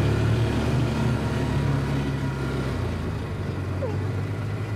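Vehicle engine running as it drives across a grassy pasture, easing off and dropping in pitch about three seconds in.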